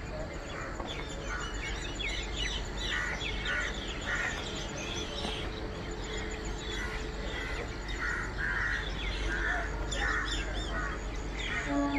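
Birds chirping, with many short calls scattered throughout, over a steady low background hum.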